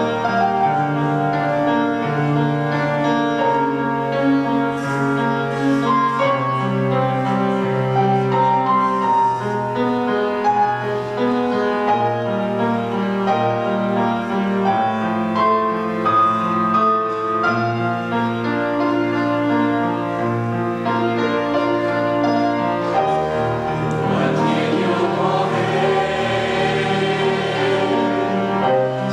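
Mixed choir of men and women singing a Chinese hymn in parts, with piano accompaniment; the singing swells fuller and brighter near the end.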